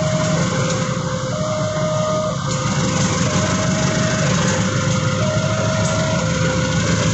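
Level-crossing warning alarm sounding a steady two-note tone, switching between a higher and a lower note about once a second, over the low rumble of a diesel-electric locomotive's engine running as it moves slowly past.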